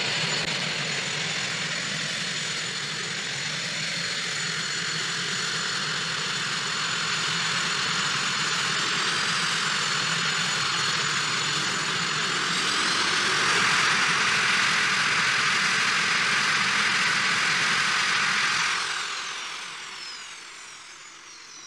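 A Northrop F-5 fighter's twin J85 turbojet engines running on the ground with a loud, steady rush and a high whine that edges up slightly past halfway. About nineteen seconds in the engines are shut down: the rush drops away and the whine glides downward as they spool down.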